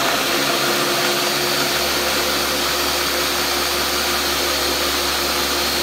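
Countertop blender running steadily, grinding raw cashews with nutritional yeast and spices into a dry meal: a loud, even whir.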